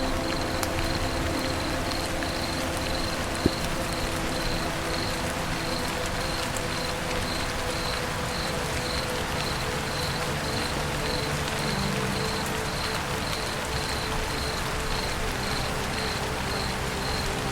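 Steady rain falling on a roof, with an insect, typical of a cricket, chirping in a fast even pulse high above it. One sharp tap about three and a half seconds in.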